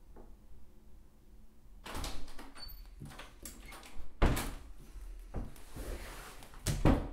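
Interior panelled door being opened and shut, the shutting a sharp knock just after four seconds in, followed by a second loud thump against it near the end.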